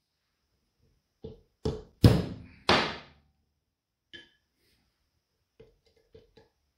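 A steel roll pin in a lathe spindle being tapped with a hammer on a punch to even it up after it went in too far. There are four sharp knocks in quick succession, the last two the loudest, then a lighter tap with a brief metallic ring and a few soft taps near the end.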